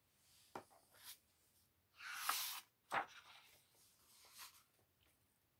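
Paper pages of a hardcover picture book being turned by hand: a soft swish of paper about two seconds in, with light clicks and taps of the book being handled.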